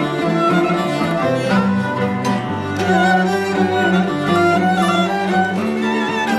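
Music played on bowed string instruments: a moving melody over sustained low notes.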